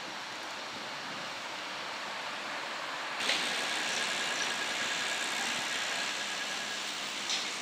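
Steady city street traffic noise. About three seconds in it jumps to a louder, brighter hiss, with a faint steady whine through the middle part.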